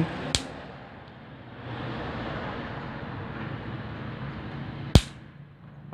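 Two sharp snaps from an electrolytic capacitor being charged and shorted on a homemade capacitor tester: a small one just after the start and a much louder one near the end. The strong spark shows the capacitor holds its charge. A steady background noise runs between them.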